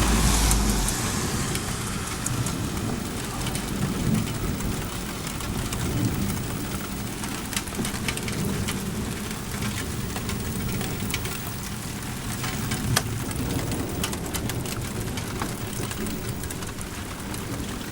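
Steady heavy rain with many sharp drop ticks on a hard surface. A low thunder rumble is loudest at the start and dies away within about the first second.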